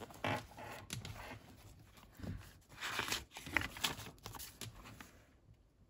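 Paper and card pages of a handmade junk journal rustling and crinkling as they are handled and turned, with a few soft taps, in irregular rustles that fade out near the end.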